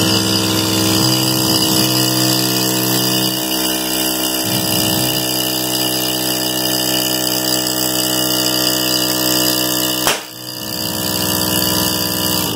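Rebuilt VIAIR 450C air compressor running steadily, pumping up a balloon on its outlet as a pressure test of its new piston and cylinder. It is the loudest thing heard. About ten seconds in there is a sharp break and a brief dip, and then it runs on.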